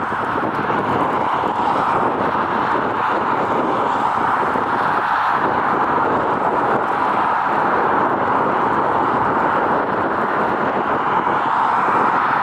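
Boeing 777 jet engines running, a loud, steady noise with no rise or fall.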